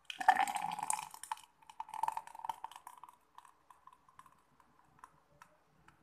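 Thick carrot-and-yogurt smoothie poured from a blender jar into a glass: crackly and loudest in the first three seconds, then tapering off to scattered small clicks.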